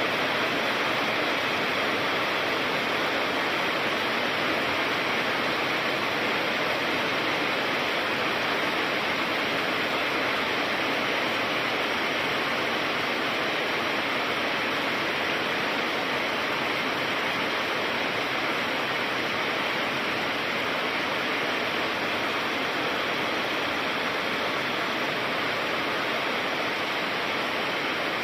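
Heavy rain pouring down in a steady, even hiss, with no thunder claps.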